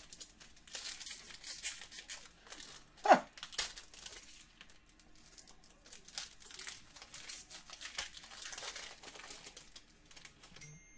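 Foil trading-card pack wrapper crinkling and tearing as it is worked open by hand, with irregular crackles throughout. There is one short, sharp falling squeak about three seconds in.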